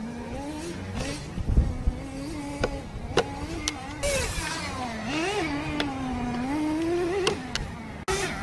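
Electric motor of a Traxxas Slash 2WD RC truck whining, its pitch rising and falling smoothly with the throttle, with a few sharp plastic clicks.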